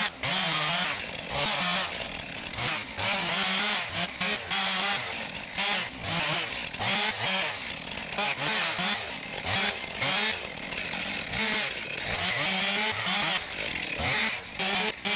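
Two-stroke gas chainsaw with a freshly sharpened chain cutting through a log. The engine revs up and drops back again and again as the throttle is squeezed and released.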